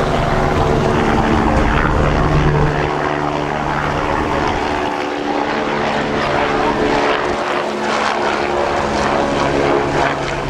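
Steady engine drone with a low multi-tone hum over a hiss of noise; the hum weakens a little about halfway through and then returns.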